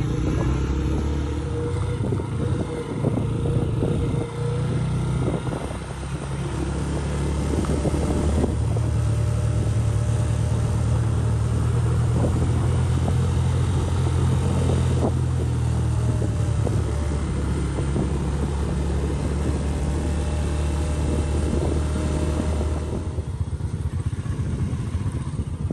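Small motorcycle engine running steadily while riding, with wind noise over the microphone; the engine note shifts a few times and eases near the end.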